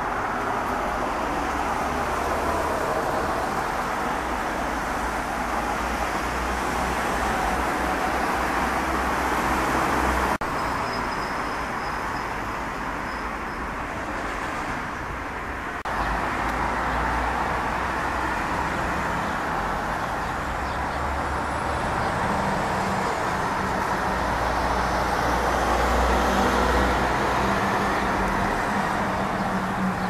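Steady city road-traffic noise, cars going by on a nearby street. It changes abruptly about ten seconds in and again about sixteen seconds in, and a faint high thin tone sounds for a few seconds in between.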